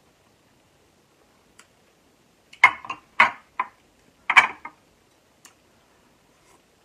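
Glass serving bowls knocking and clinking against each other and the tabletop: three quick clusters of sharp clacks over about two seconds, with a few faint ticks either side.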